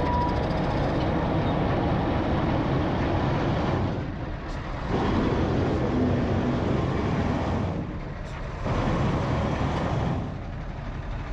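A heavy truck's engine running, its level swelling and easing a few times.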